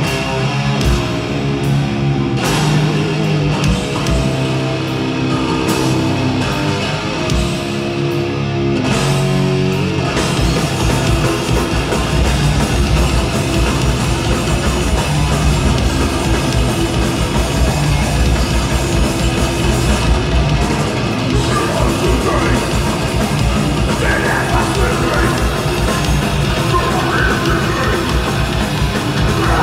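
Death metal band playing live: distorted electric guitars, bass guitar and drum kit, loud. For about the first ten seconds the riff stops and starts in short held chords, then the band breaks into a fast, dense passage with continuous guitars over steady heavy drumming.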